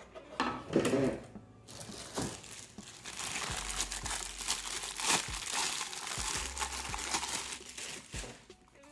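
Packaging crinkling and rustling, with some tearing, as a vacuum wall mount is unwrapped by hand. It runs for several seconds after a brief pause at the start.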